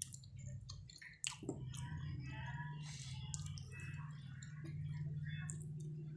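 Close-up chewing and wet mouth smacking while eating spicy chicken feet, with many short sharp clicks, over a steady low hum.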